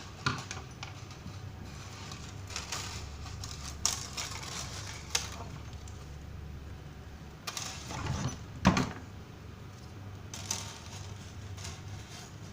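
Scattered clicks and knocks of small metal parts and tools being handled while working on an electric heater, over a steady low hum; the sharpest knock comes about two-thirds of the way in.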